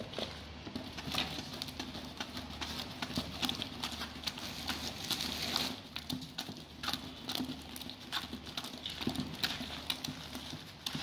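Wooden stick stirring a wet cement screeding mix in a plastic bucket: irregular knocks and scrapes of the stick against the bucket's sides and bottom, several a second.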